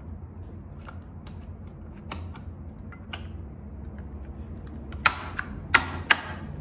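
Plastic clips of a water softener's control valve housing clicking as the control circuit board is handled and pressed into place: light scattered clicks, then three sharp snaps close together near the end.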